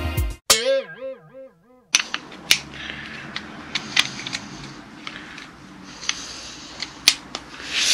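A warbling sound effect, its pitch wobbling up and down, for about a second and a half. Then come sharp, irregular clicks and knocks as gloved hands work at the blade of a cordless oscillating multi-tool.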